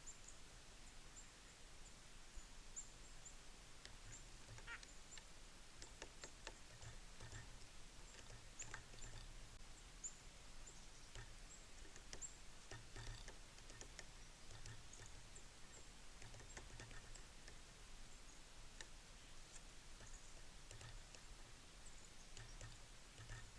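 Faint, high-pitched short chips and calls from a flock of small birds at a feeder, with scattered light clicks and ticks.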